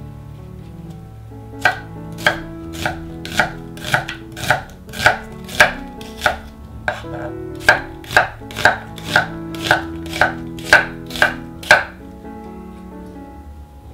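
Chef's knife slicing a peeled onion into strips on a wooden cutting board: an even run of about two chops a second that starts a couple of seconds in and stops near the end.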